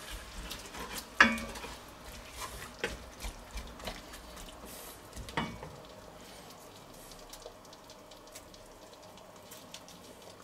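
Wooden spatula stirring braising cabbage in an enamelled pot, scraping and knocking against the pot a few times, the loudest knock about a second in, over a faint sizzle of the cabbage cooking in a little added water. The stirring stops about halfway through, leaving only the faint sizzle.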